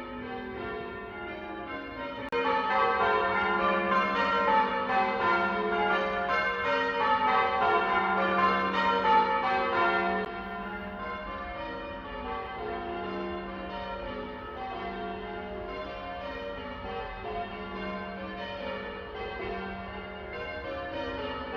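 A ring of church bells pealing, many bells struck one after another in quick succession with their tones overlapping. The sound swells about two seconds in and drops back about ten seconds in.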